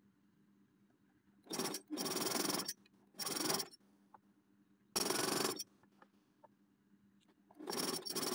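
Electric sewing machine stitching in four short runs, each starting and stopping within about a second, as a placket strip is sewn on. A faint low hum lies between the runs.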